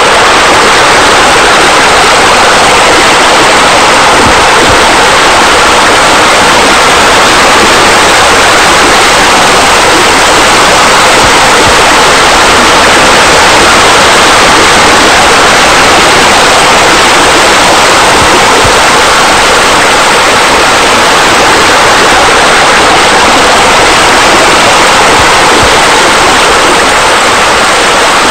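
Loud, steady rush of falling water, an even unbroken splashing like a spa spilling over into a pool.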